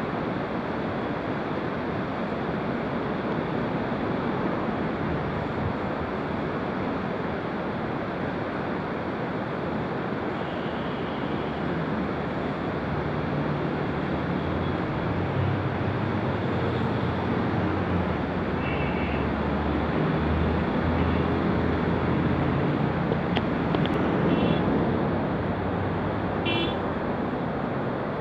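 Steady rushing of a fast, muddy river over rapids, with the low rumble of a vehicle engine building up through the second half and fading near the end. A few short high chirps sound late on.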